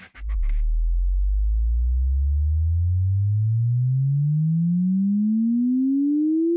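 Sine-wave test sweep played through AKG K371 closed-back headphones and picked up by microphones: a single pure tone that starts as a deep hum and glides slowly and steadily upward in pitch.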